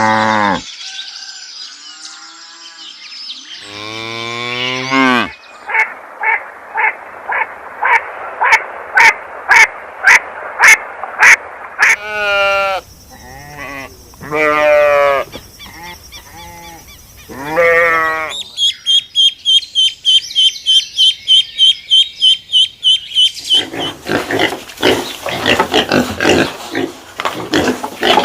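A string of different animal calls, one clip after another: a single call, then a run of short repeated calls about two a second, several long calls, a fast run of high-pitched repeated notes, and a dense stretch of rapid calls near the end.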